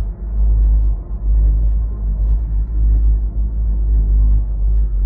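Loud, steady low rumble heard from inside a gondola cabin riding up the tram cable, with a few faint light ticks.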